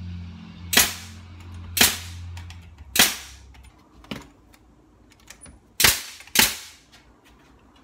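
Sharp, loud impacts of nails being driven into wood: four about a second apart, a fainter one, then after a pause two more in quick succession. A low steady hum runs under the first few and stops just under three seconds in.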